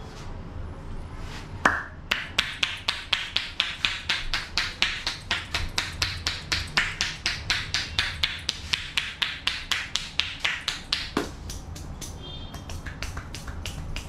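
Indian head massage percussion: the barber's palms, pressed together, strike a man's head in a fast, even run of claps, about four or five a second, from about two seconds in until about eleven seconds. Near the end come lighter, quicker snaps as the barber tugs the hair between his fingers.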